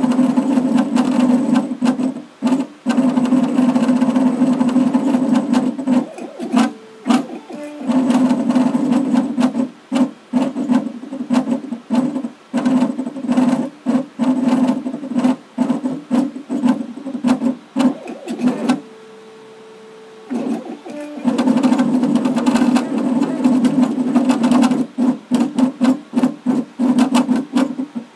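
Engraving machine driving a diamond-tip drag tool across a pewter tankard: a steady buzzing whir in stop-start runs with many short breaks as the tool moves from stroke to stroke. About two-thirds of the way through it stops for roughly two seconds, leaving only a faint steady tone, then starts again.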